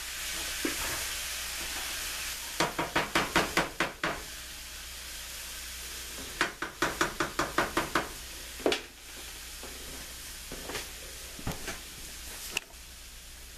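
Fried cabbage with bacon sizzling in a skillet while being stirred with a spoon: two runs of quick scraping strokes against the pan, then a few single knocks. The sizzle fades with the burner off, dropping again near the end.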